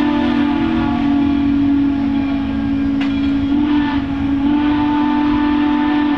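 Steam locomotive whistle blowing one long chord, wavering slightly in pitch over a low rumble, then cutting off suddenly near the end.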